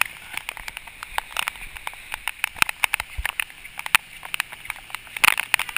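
Heavy monsoon rain: a steady hiss with many irregular sharp taps of drops landing close to the microphone.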